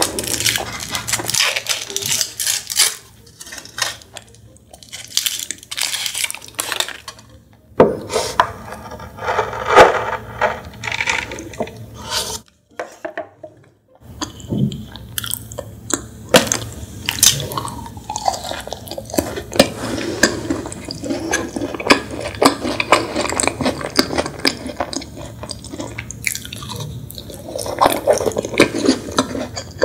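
Close-miked crinkling and crackling of a foil wrapper as an Oreo egg-shaped chocolate is unwrapped and handled. After a brief silence, this gives way to dense mouth sounds of biting and chewing the chocolate.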